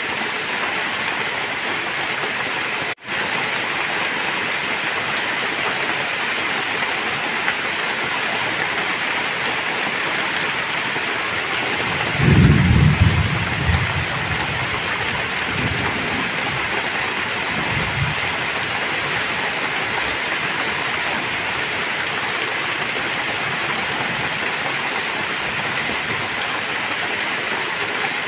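Heavy rain falling steadily on trees and open ground. About twelve seconds in, a deep rumble of thunder starts and rolls on in weaker rumbles for several seconds.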